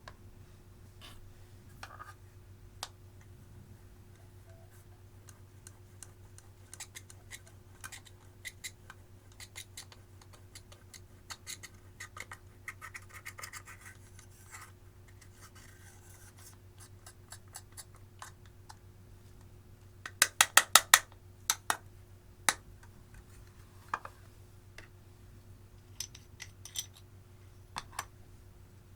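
Clear slime and eyeshadow being worked by hand: scattered sharp clicks and scratching. A quick run of about six loud clicks comes about two-thirds of the way through.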